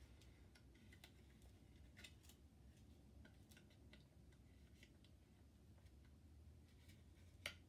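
Near silence with faint handling of paper instruction leaflets: scattered small ticks and rustles, and one sharper click near the end.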